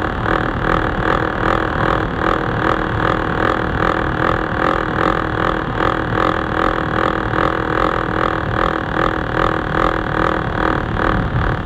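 TTC subway train running through a tunnel: steady wheel-on-rail running noise with a few steady tones, pulsing evenly about twice a second.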